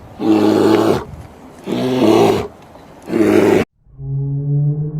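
An animal's loud pitched calls, three in a row about a second and a half apart. The calls cut off suddenly near the end, and a steady humming tone begins.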